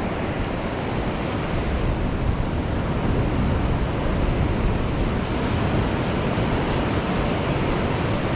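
Ocean surf washing steadily onto a beach, mixed with wind buffeting the microphone.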